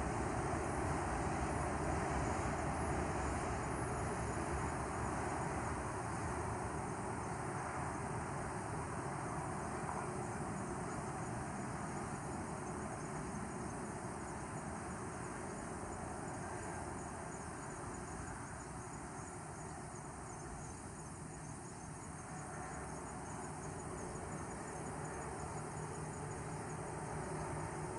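Insects chirping in a faint, even, high pulse over a steady hum of distant traffic that eases off a little toward the middle.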